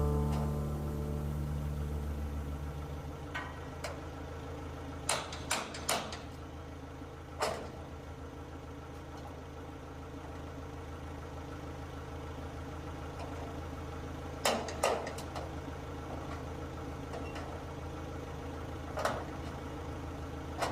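Engine idling steadily, with a scattering of sharp knocks and bangs: three close together about five seconds in, one more a couple of seconds later, a pair around the middle, and one near the end.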